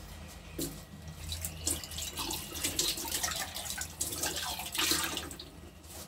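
Water running from a kitchen tap and splashing unevenly, stopping shortly before the end.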